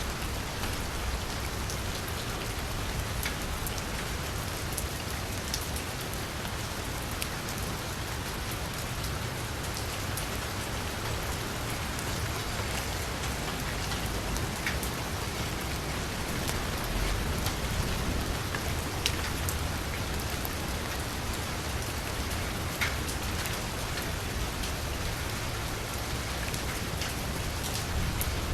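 Steady rain falling on a street, an even hiss with scattered sharper drop ticks and a low rumble underneath.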